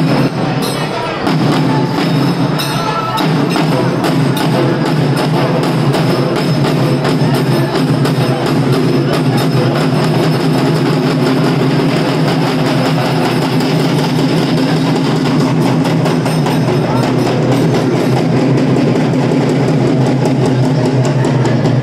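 Loud, fast, steady drumming, a driving run of drum strokes that continues without a break, over the din of a large crowd.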